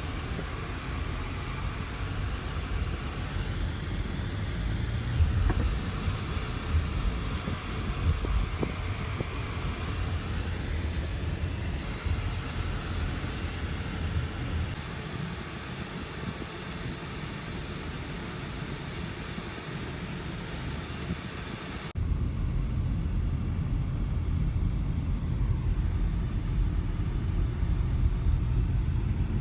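Wind buffeting the microphone outdoors: a gusty low rumble. It breaks off abruptly about three quarters of the way through and resumes as a louder, duller rumble.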